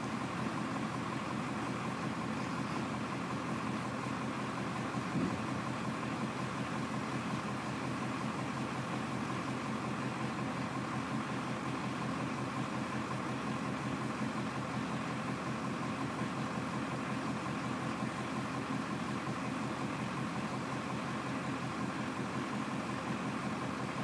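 Semi tractor's diesel engine idling steadily, with one brief knock about five seconds in.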